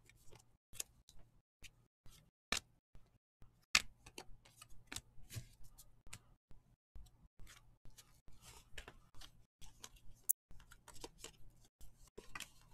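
Trading cards being handled: faint, irregular clicks and snaps as the cards are flicked through and squared up by hand, with a couple of sharper clicks a few seconds in.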